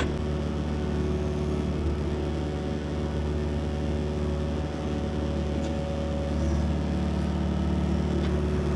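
Excavator engine running steadily at a constant pitch, with a sharp click at the very start.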